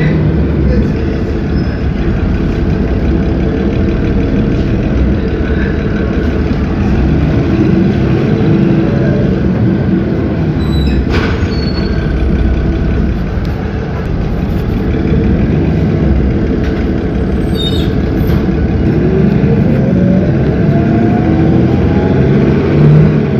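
Cummins ISB 6.7 diesel engine of an Agrale MT17 city bus running with a steady low rumble. Near the end its pitch rises as the revs climb.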